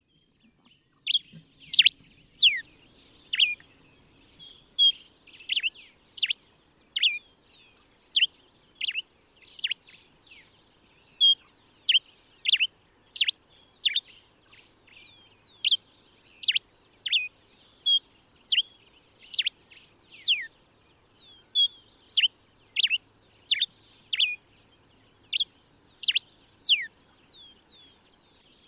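Common diuca finch (Diuca diuca) singing: a steady series of short, sharp whistled notes, many sweeping steeply downward, at a little over one note a second.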